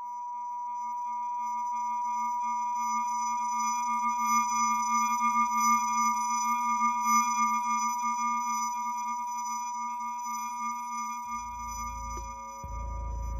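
Sustained electronic tones from the soundtrack: a steady high-pitched tone with a lower hum and fainter higher tones above it, swelling in at the start and wavering slightly in loudness. A deep low rumble comes in near the end.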